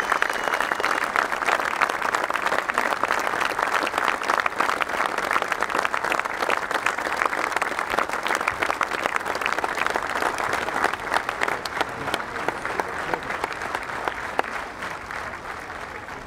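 A large stadium crowd applauding, thousands of hands clapping at once, slowly dying away over the last few seconds.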